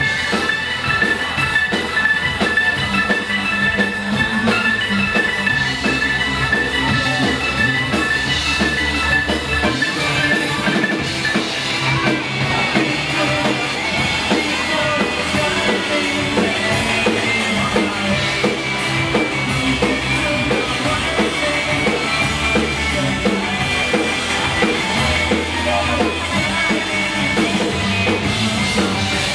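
Live band music: a drum kit keeps a steady beat under bass and other instruments, with bright high sustained tones on top that drop out about twelve seconds in.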